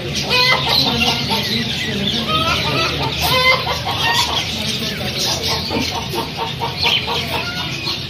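A chicken clucking in short repeated notes, mostly in the first half, over the constant high chirping of many small caged birds.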